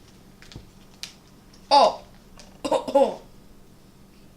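Two short vocal exclamations, the first an "oh", each falling in pitch, with a few faint clicks from handling a snack package before them.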